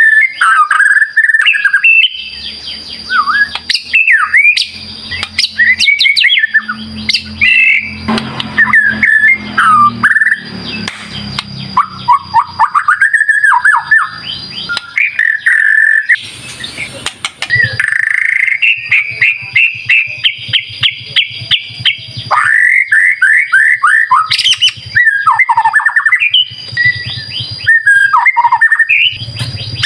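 White-rumped shama (murai batu) singing a fast, varied song: loud whistled phrases, quick rising trills and harsh chattering notes following one another with hardly a pause.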